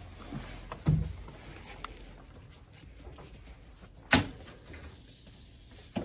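A few separate sharp knocks and thumps over a low steady hum. One comes about a second in, the loudest about four seconds in, and a smaller one near the end.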